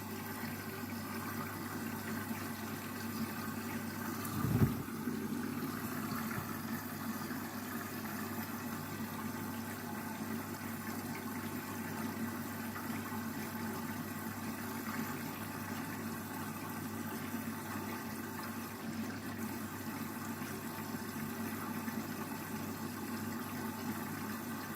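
Candy washing machine starting a rinse cycle: a steady rush of water running through the machine, with a faint hum, and one low thump about four and a half seconds in.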